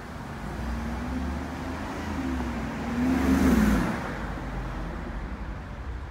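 A car driving past on the street, its engine note wavering up and down under a swelling tyre hiss that peaks about three and a half seconds in, then fades.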